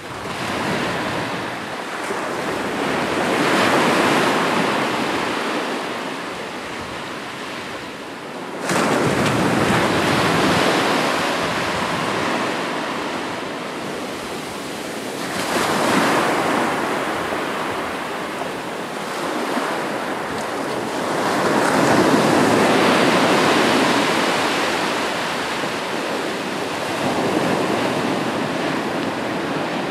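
Ocean surf: waves breaking and washing up the shore one after another, swelling and ebbing about every five to seven seconds, one wave crashing in suddenly about nine seconds in.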